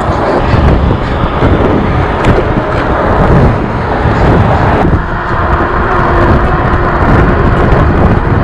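Wind buffeting the microphone of a camera on a moving e-bike, mixed with tyre and road noise and passing car traffic; the rush eases slightly about five seconds in.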